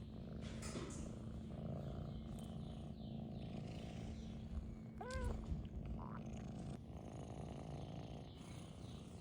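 Scottish Fold kitten purring steadily in a low rumble, with one brief high call about five seconds in.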